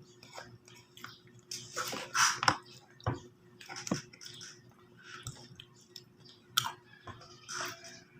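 Chewing and eating sounds close to the microphone: irregular short bursts and clicks, loudest about two seconds in.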